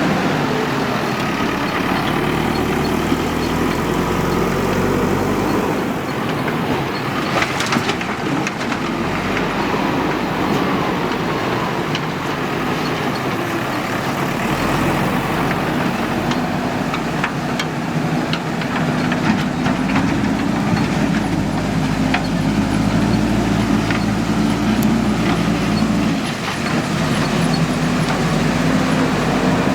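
Diesel engine of a JCB 3DX backhoe loader running under load, its pitch rising and falling as it works, with a metallic clank about a third of the way in and a few lighter knocks.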